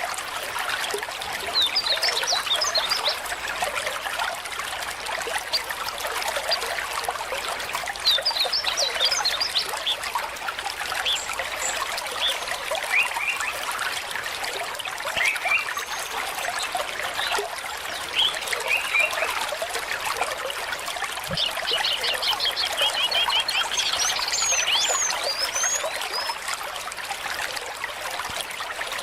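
Water trickling steadily, with small birds chirping over it in several quick runs of high chirps, the longest near the end.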